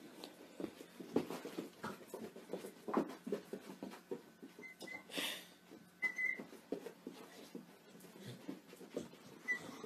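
Emu chick giving a few short, high whistled peeps, a pair about halfway through, another a little later and one near the end, over faint, soft scattered taps and shuffling.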